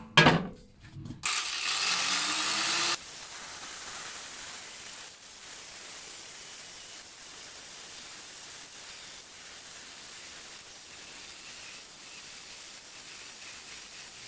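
A heavy steel anvil is set down on a steel sheet with a couple of sharp metallic clunks. Then an angle grinder with a thin cutting disc spins up and cuts into the sheet steel. After about three seconds the cutting goes on as a quieter, steady hiss.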